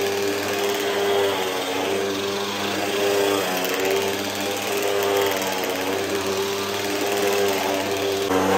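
Hoover WindTunnel upright vacuum cleaner running on carpet, super loud, its motor hum shifting slightly in pitch every second or so as the head is pushed and pulled.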